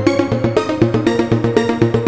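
Background music with a steady beat and a short repeating melody.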